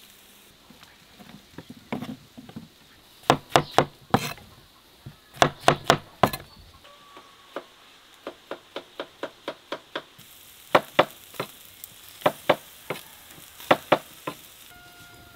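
Knife chopping on a wooden cutting board: runs of sharp knocks, some quick and uneven, one a steady chop about three times a second. Underneath is a faint sizzle from quails cooking on the charcoal grill.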